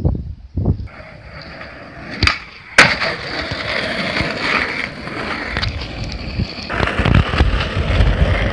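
Skateboard wheels rolling on asphalt, with two sharp clacks of the board about half a second apart between two and three seconds in.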